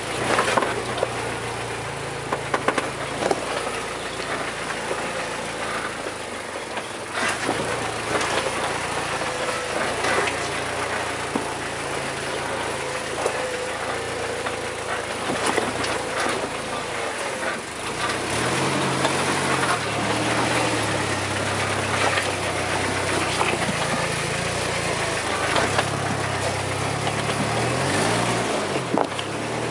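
4x4 vehicle's engine running at low speed while crawling over a rocky track, its pitch rising and falling several times in the second half as the throttle changes. Short knocks and rattles from the vehicle jolting over loose rocks.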